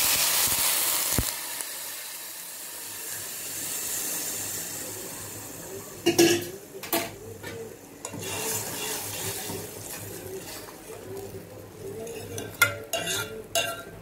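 Milk poured into a hot metal pot of ghee-roasted vermicelli, hissing and sizzling loudly at first and dying away within the first two seconds. Then a steel ladle stirring the milk, knocking and scraping against the pot a few times, with a cluster of clicks near the end.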